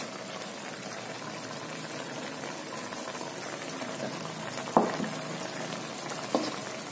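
Curry sauce simmering and bubbling in an aluminium wok. A metal spatula stirs through it, knocking against the pan twice, about five and six seconds in.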